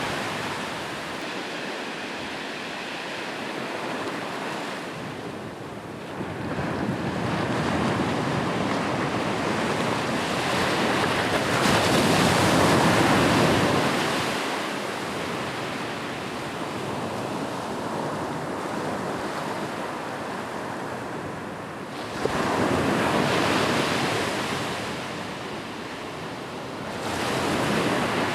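Ocean surf breaking on a beach, the wash of the waves swelling and easing every several seconds, with one wave hitting abruptly about three-quarters of the way in.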